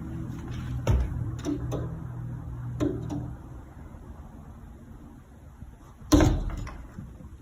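A few short knocks and bangs over a low steady hum that stops about three and a half seconds in, then one louder bang about six seconds in.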